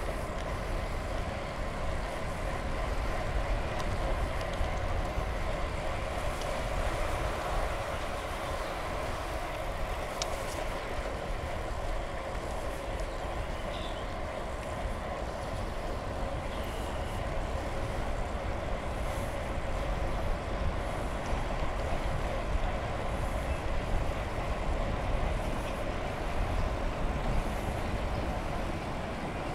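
Steady rolling noise of a bicycle riding on a paved trail, a continuous hum with wind rumbling on the microphone and a few faint ticks.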